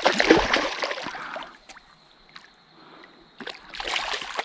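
Water splashing as a hooked cod is drawn in through the shallows at the bank: a longer burst of splashing at the start and a shorter one near the end.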